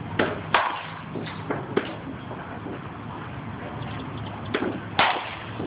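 Baseball bat striking balls during batting practice: a series of sharp knocks at uneven intervals, several close together in the first two seconds and the loudest about five seconds in, over a low steady hum.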